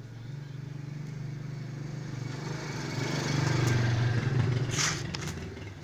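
Homemade satay-skewer machine running, its 2 HP low-speed electric motor driving bamboo through a four-hole cutter: a steady low hum with a rougher noise on top. The noise swells louder a little past the middle, and there is a brief hiss near the end.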